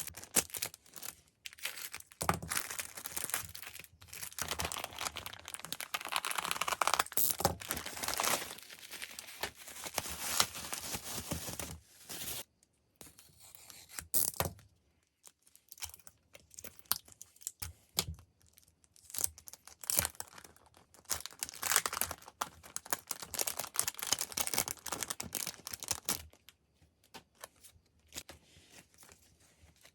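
Packaging being torn open and crinkled by hand, in uneven runs of scratchy rustling with quieter pauses between.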